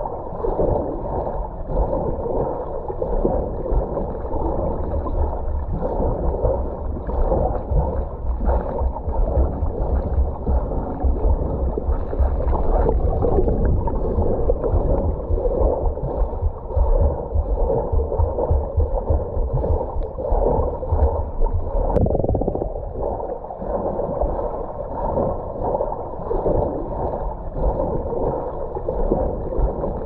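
Water churning and bubbling from a swimmer's butterfly (dolphin) kick, heard from underwater: a muffled, low, rumbling wash of sound that surges and eases without a break.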